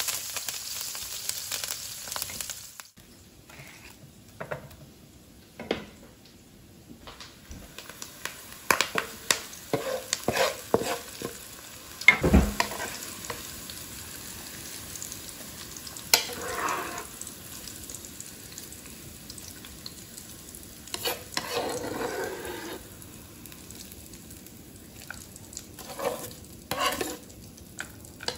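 Garlic, chilli and curry leaves sizzling in hot oil in a pan as they are stirred with a wooden spatula; the sizzle stops abruptly about three seconds in. After that come scattered knocks and scrapes of the spatula against the pan as the stir-fried topping is scraped out, the loudest a sharp knock about twelve seconds in.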